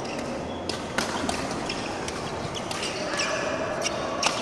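Badminton rally: several sharp cracks of rackets striking the shuttlecock, the loudest about a second in and near the end, with sports shoes squeaking on the court floor in the last second or so.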